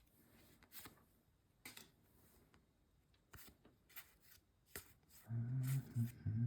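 Magic: The Gathering trading cards being handled and flipped through by hand: soft, scattered snaps and slides of card stock. A short low voice murmurs about five and a half seconds in.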